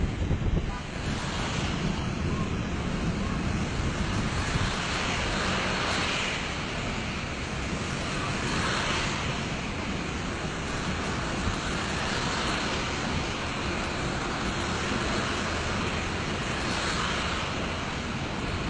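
Steady rushing of a waterfall pouring down a rock face, with wind buffeting the microphone.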